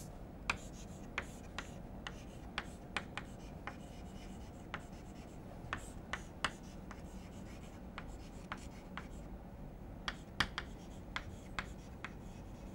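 Pen writing: faint, irregular light taps and strokes of a pen over low room hiss, with a few sharper taps together about ten seconds in.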